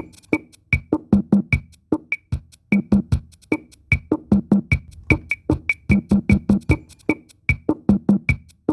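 Instrumental music with a fast percussive beat of short, sharp hits: woodblock-like clicks over a low drum.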